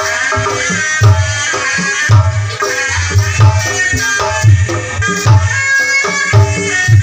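Live kendang pencak ensemble: large two-headed kendang drums beat a driving rhythm of deep strokes, in clusters about once a second, under a continuous reedy melody from a terompet shawm.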